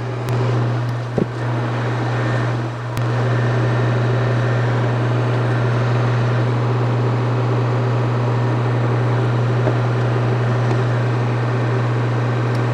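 Ventilation system's exhaust fan running with a loud, steady low hum, with a couple of light clicks about one and three seconds in.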